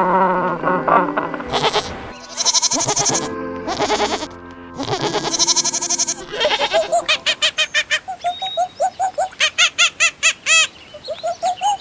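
Goats bleating, several long, wavering bleats, followed by a fast run of short repeated calls in the second half.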